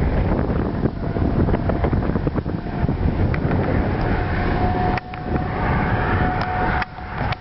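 Storm wind buffeting the microphone, a loud, rough, continuous rush heaviest in the lows, with scattered small clicks and a faint steady tone coming in about four seconds in.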